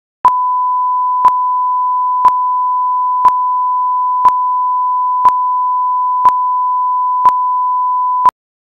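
Steady test-card reference tone, a single pure tone pitched at about 1 kHz, with a short sharp click once a second. It runs for about eight seconds and then cuts off suddenly.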